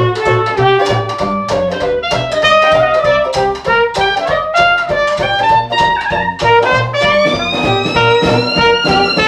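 Small traditional jazz band playing: cornet and clarinet carry the melody lines over a banjo and string bass keeping a steady beat, with drums.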